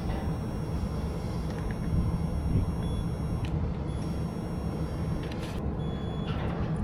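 Steady low machine hum with faint high-pitched tones over it.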